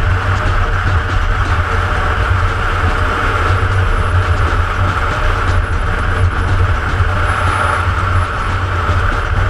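Motorcycle cruising at a steady speed on a paved road, its engine and rushing wind heard through a camera mounted on the bike; the noise stays even.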